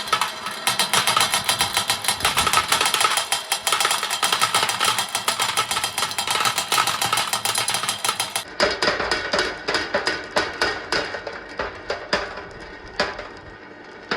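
Many balls rolling and clattering down a long wooden marble-run track: a dense stream of rapid clicks and knocks. About eight and a half seconds in the sound changes abruptly to sparser, separate clicks.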